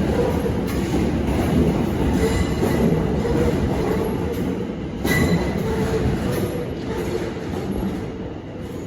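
Electric train moving along the platform: a steady rumble with squealing wheels and a sharp knock about five seconds in, growing quieter toward the end.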